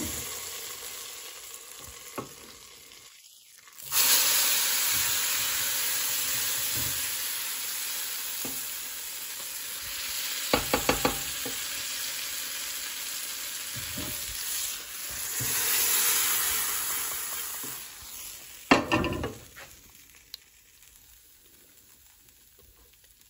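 A tadka of hot desi ghee with cumin seeds and peppercorns sizzling as it hits the cooked moong dal, a steady frying hiss that fades, comes back louder, and dies down near the end. A few quick metallic clinks of the pan or spoon about ten seconds in and again later.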